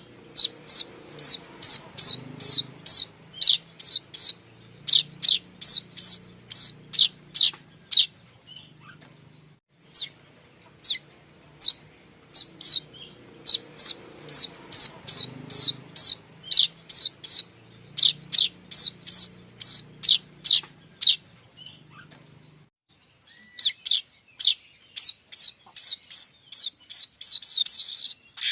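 Manyar kembang weaver lure-call recording: sharp, high chirps given in quick series, about two or three a second, broken by short pauses twice. The chirps come faster near the end.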